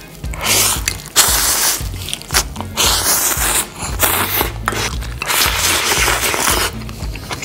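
Instant ramen noodles being slurped loudly in a series of long slurps, with a slurp of spicy stew broth from a dish near the end. Background music plays underneath.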